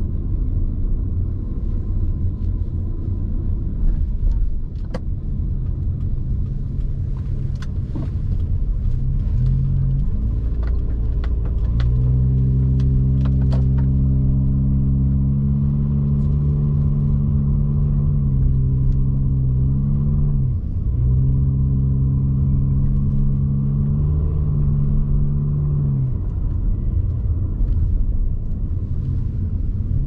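A car driving, heard from inside the cabin: a steady low road and engine rumble. Scattered light clicks come in the first dozen seconds. From about ten seconds in a steady engine drone joins, dips briefly about twenty seconds in, and fades out a few seconds before the end.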